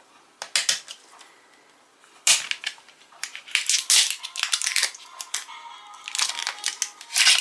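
Thin plastic shrink-wrap sleeve being torn and peeled off a plastic drink bottle, crackling and crinkling in irregular bursts.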